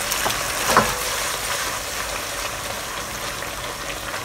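Chicken and broccoli in sauce sizzling steadily in a non-stick wok over raised heat as the sauce reduces, with one brief scrape about a second in.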